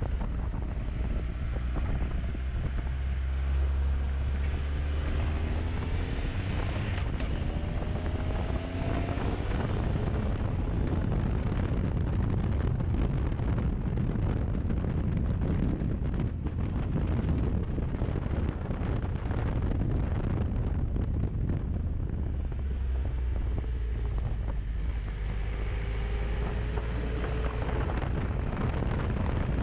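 1200 cc motorcycle engine under way, its pitch climbing as it accelerates about two seconds in and again near the end. Heavy wind rush on the microphone runs under it throughout.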